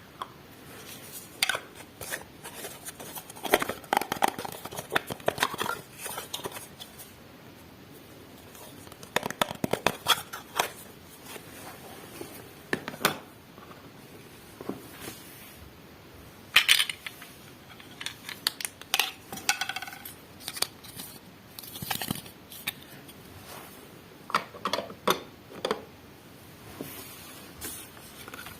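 Miniature plastic toy kitchenware being handled and set down: irregular light clicks, taps and small clatters, some in quick clusters.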